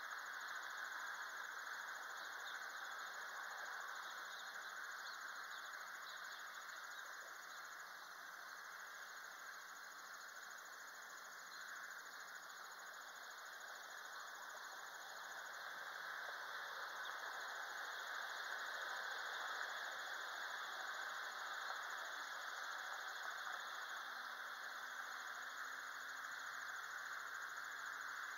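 Steady outdoor background hiss, even and unbroken. Faint low hums drift in and out, one near the start and another in the last few seconds.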